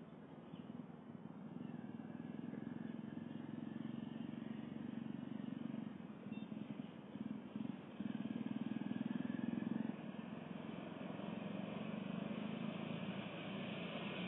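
Distant diesel locomotive approaching with its train: a faint, steady engine drone that grows louder toward the end.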